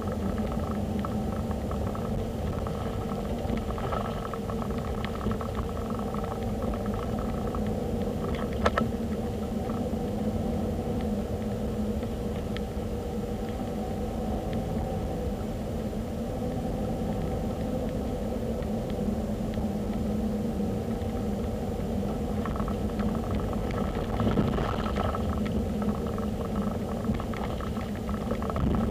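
Steady road and engine rumble of a moving car, heard from inside the cabin, with a few light clicks and rattles; a sharper click comes about 9 seconds in.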